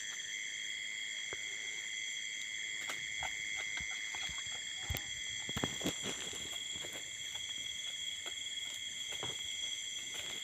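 Night insect chorus of crickets or katydids, a steady high-pitched trilling, with scattered faint clicks and snaps, the sharpest about five seconds in.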